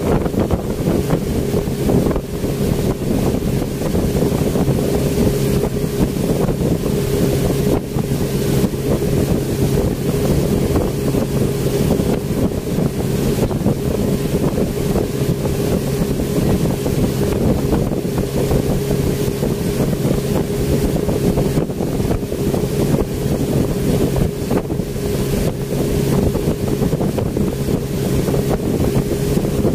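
Speedboat engine running at a steady cruising pitch, with wind buffeting the microphone.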